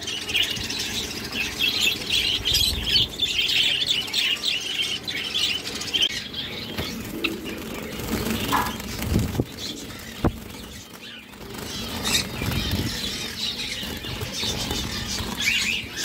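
A flock of caged Java sparrows chirping with many short, overlapping calls and fluttering their wings as they flit about the wire-mesh cage. The chirping is busiest in the first half.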